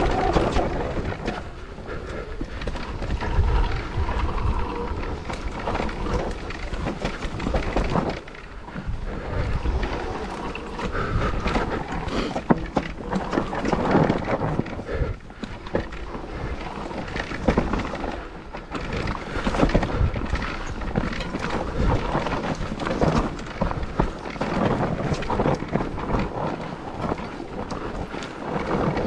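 Mountain bike riding fast down a rough trail: tyres rolling over dirt and rock and a constant clatter of knocks and rattles from the bike over bumps, with wind rumbling on the microphone.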